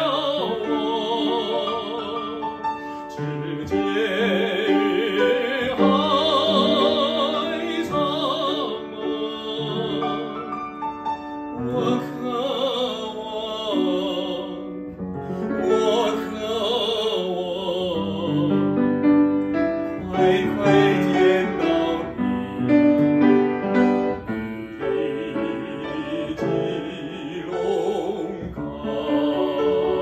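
A man singing a Chinese art song in a trained operatic style with a wide vibrato, in phrases, accompanied by a piano.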